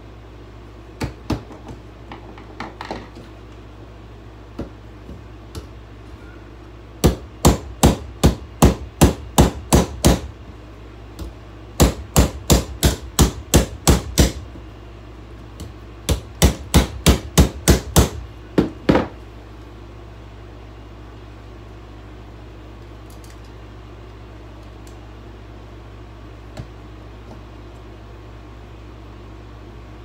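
An old plastic hair dryer being smashed: a few scattered knocks, then three quick runs of hard blows, about three a second, over a steady low hum.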